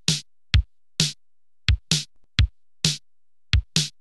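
Electronic drum-machine beat: short low kick-drum thuds alternating with crisp snare-like hits, about two hits a second, with quiet gaps between.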